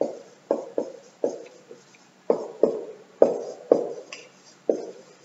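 Marker pen writing on a whiteboard: about ten short, irregularly spaced knocks and strokes of the pen tip against the board, each fading quickly.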